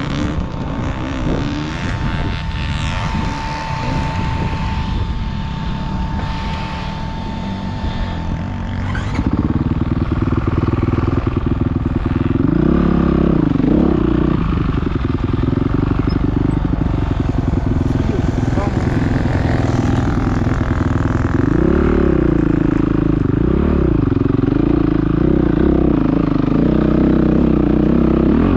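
Dirt bike engine running close up, quieter for the first several seconds and then louder under load from about nine seconds in, with the revs rising and falling a few times as it climbs a steep slope.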